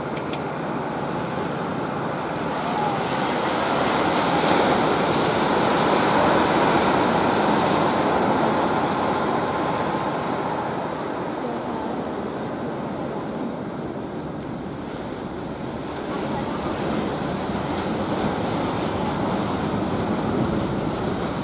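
Surf breaking and washing in the sea inlet, with wind on the microphone: a steady rush that swells louder about a quarter of the way in and again near the end.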